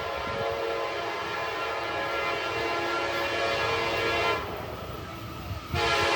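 Diesel locomotive air horn on a freight train, sounding a long blast that stops about four seconds in and starts again just before the end, over a low rumble from the train.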